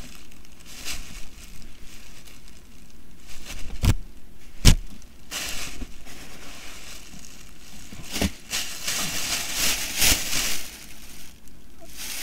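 Rustling and crinkling as clothes and a shopping bag are handled, with a few sharp knocks about four, five, eight and ten seconds in.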